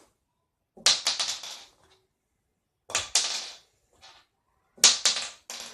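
A small .410 shotgun shell flipped and landing three times, each landing a quick clatter of sharp ticks as it bounces and rattles before settling.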